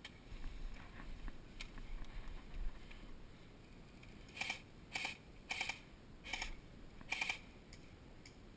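Airsoft electric rifle firing five short bursts of rapid clicking shots, about half a second to a second apart, after a few seconds of low rustling and knocks from handling and movement.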